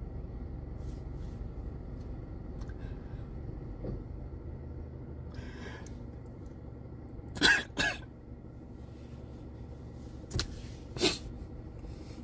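A man clearing his throat in short hacks while composing himself: two quick ones a little past halfway and two more near the end, over a steady low hum.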